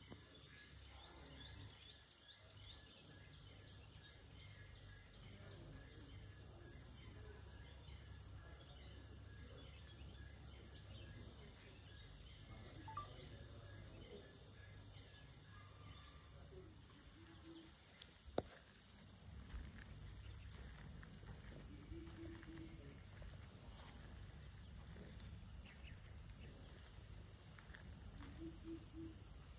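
Faint forest ambience: a steady high insect drone over a low rumble, with a few faint scattered bird calls, and one sharp click about two-thirds of the way through.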